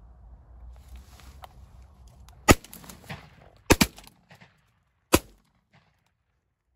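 Shotguns firing at birds overhead, two hunters shooting: one shot about two and a half seconds in, two almost together a little over a second later, and a last shot about a second and a half after that.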